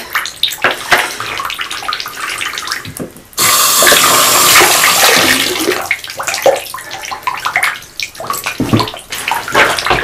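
Water sloshing and splashing in a bathtub as hands swish fidget toys through it to wash them. About a third of the way in, a louder steady rush of water starts suddenly and runs for about two seconds before the sloshing resumes.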